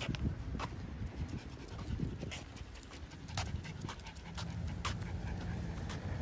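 Miniature schnauzer panting steadily while walking on a concrete sidewalk, with a scattered series of sharp light clicks from steps on the pavement.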